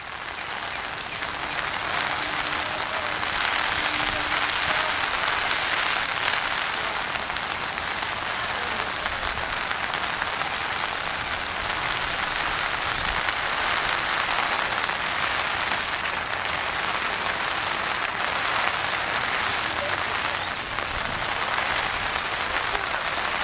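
Rain falling steadily on a pond's water surface, an even, unbroken hiss.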